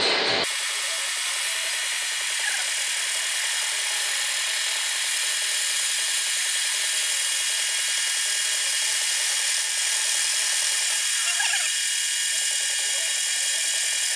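Boring machine running steadily as its boring bar cuts the connecting rod's small-end bore on a roughing pass, taking 1.5 mm off the diameter to enlarge the bore for a new bushing.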